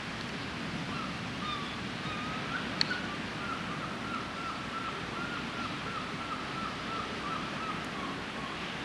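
Steady hiss of outdoor ambience, with a faint run of short, evenly repeated chirps through most of it and a single sharp click about three seconds in.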